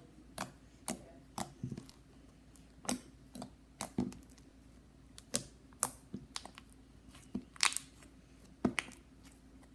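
Fingers poking and pressing a slightly overactivated slime, making irregular short clicks and pops, about two a second.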